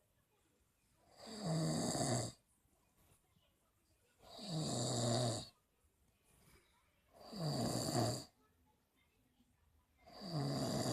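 Snoring in a steady rhythm: a snore about every three seconds, each lasting about a second, with quiet breathing gaps between. The last snore starts near the end.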